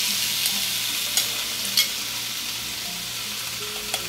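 Zucchini noodles sizzling in hot olive oil in a frying pan, a steady hiss that eases slightly, with a few sharp clicks of metal tongs.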